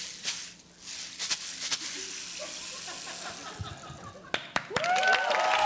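A rain stick tipped end over end, rattling with a steady trickling hiss that drops away briefly about half a second in, then runs on and fades near four seconds. The audience then starts clapping and whooping.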